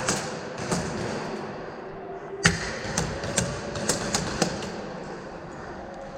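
Airsoft gun firing single shots: sharp cracks, two in the first second, then a quick uneven string of about six more, the loudest about two and a half seconds in.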